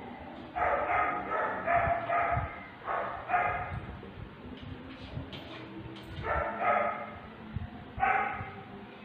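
A dog barking off and on: a quick run of short barks over the first three seconds or so, then a few more about six and eight seconds in.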